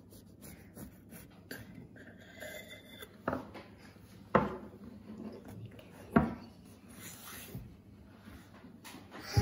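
Kitchenware being handled on a counter: a few sharp knocks with a short ring, the loudest about four and six seconds in, and faint rubbing and scraping between.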